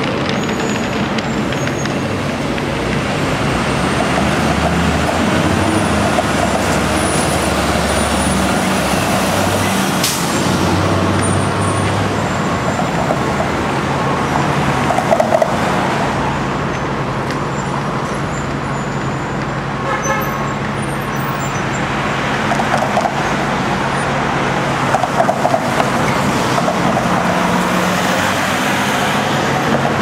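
City street traffic: cars and buses running past with steady road noise and engine hum, and a few brief knocks.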